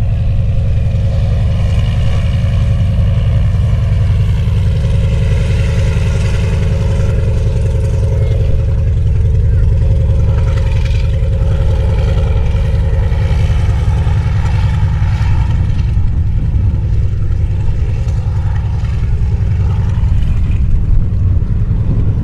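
Antonov An-2's nine-cylinder radial engine running at taxi power as the big biplane rolls past, a loud, steady drone.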